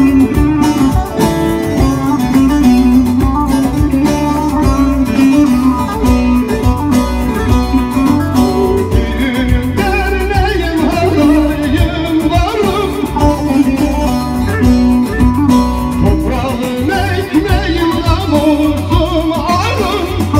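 Live amplified band music: a plucked string instrument playing over keyboard accompaniment, with a man's singing voice coming in from about halfway through.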